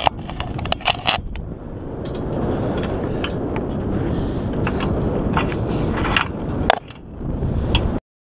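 Wind buffeting the microphone, with scattered sharp metallic clinks and scrapes from climbing hardware against a steel lattice tower. The sound cuts off suddenly near the end.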